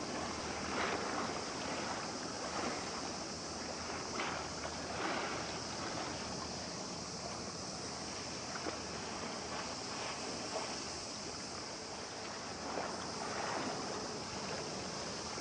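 Waterside ambience of wind and water: a steady rush with a few soft splashes or swells of noise every few seconds.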